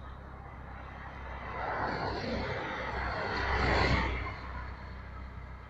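A vehicle passing close by: its noise swells for about two and a half seconds, peaks, then fades quickly, over a steady low road rumble.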